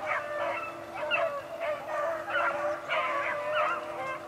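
A pack of beagles baying in full cry, many short rising and falling calls from several hounds overlapping without a break: the hounds running a swamp rabbit's trail.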